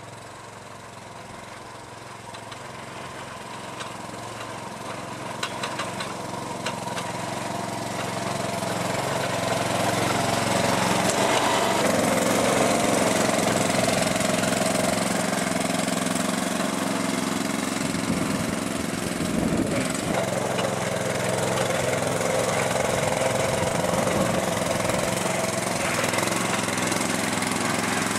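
Small engine of a Muck-Truck motorised wheelbarrow running steadily as it pushes snow with a front plow blade. It grows louder over the first ten seconds or so as the machine comes closer, then holds steady.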